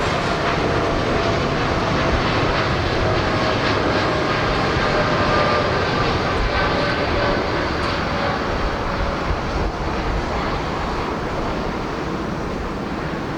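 Large jet airliner's turbofan engines at takeoff thrust: a loud, steady roar with whining fan tones that slowly fall in pitch, easing off slightly toward the end.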